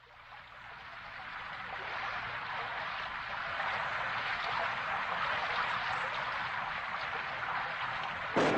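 Steady rushing water noise that fades in over the first two seconds and then holds. Near the end a sudden, louder surge with a deep rumble cuts in.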